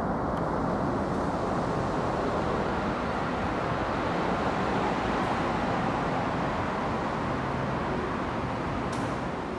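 Sendai Subway Namboku Line 1000-series train running past, a steady noise of wheels on rail and running gear that eases off a little near the end as the train moves out of sight.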